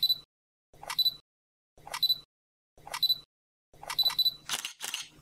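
Camera-shutter sound effects, each a click with a short high beep, about once a second, five times, followed by two quick noisy swishes near the end.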